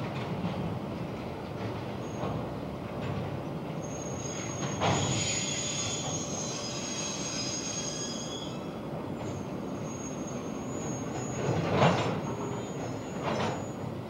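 Slow-moving freight hopper wagons, their steel wheels squealing on the rails in a high, steady whine over a low rumble. Three loud clanks come about a third of the way in, near the end, and just before the end, the middle one the loudest.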